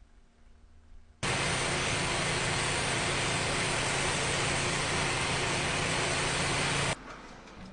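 A motor-driven power tool running at a steady speed with a loud hissing noise over a low hum, cutting in sharply about a second in and stopping sharply near the end.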